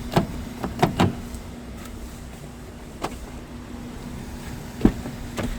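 A handful of sharp knocks and clicks, three close together early, one a little after the middle and two near the end, the strongest of them near the end, over a steady low hum.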